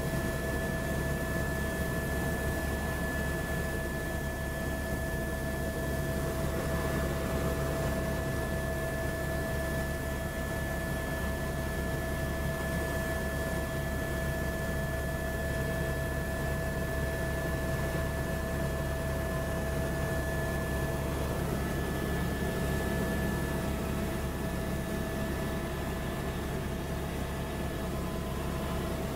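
Steady noise of a helicopter in flight heard inside its cabin: a low rumble with two high, steady whining tones over it.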